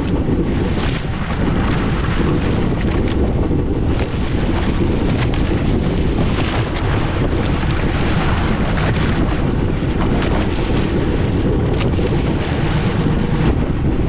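Steady rumbling noise of a fishing boat at sea, with wind buffeting the microphone.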